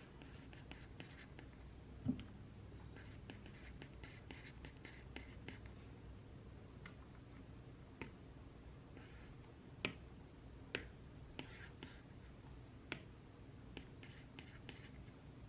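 Faint desk sounds of someone studying: light taps and clicks in small clusters, a soft low knock about two seconds in, and a few sharper single clicks in the second half.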